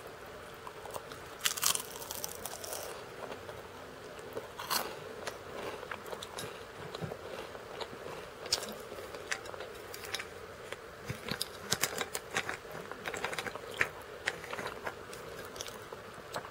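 Crackers bitten and chewed close to the microphone: a loud crisp bite about a second and a half in, then a run of sharp crunches, thickest in the second half, over a steady faint hum.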